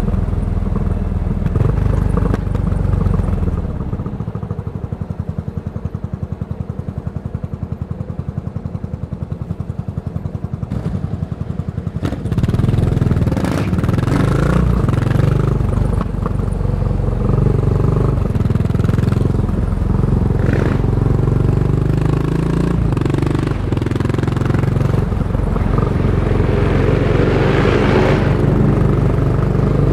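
Yamaha SR400's single-cylinder four-stroke engine running through a Goods tapered cone slip-on muffler while riding. About four seconds in it drops to a quieter, slower, even thumping for several seconds, then picks up and gets louder again about twelve seconds in.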